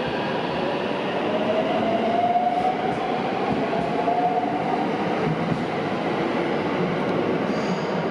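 A 521 series electric multiple unit running past close by, with steady rolling noise and a slightly rising whine from its traction motors as it picks up speed.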